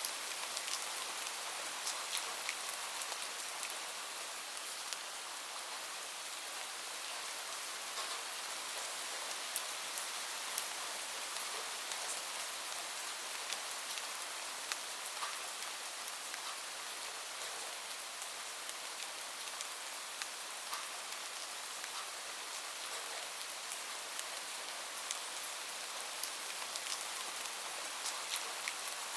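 Steady rain falling, a continuous even hiss with scattered sharp ticks of individual drops hitting a surface.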